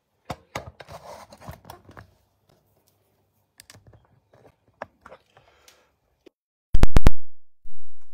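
Handling noise from a smartphone being moved and fixed in place above the counter: scraping and rustling against the microphone, a few small clicks, then a quick run of four loud knocks near the end followed by one more thump.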